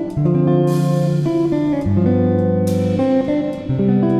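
Background music led by guitar, with sustained chords changing about every second.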